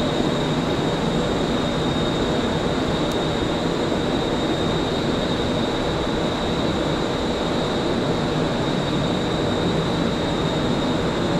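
Jet airliner engines running steadily: an even rushing noise with a constant high-pitched whine over it.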